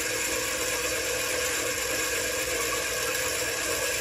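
Mini lathe running steadily, spinning a PVC pipe tee in its chuck while an end mill held in the tailstock is fed slowly into it.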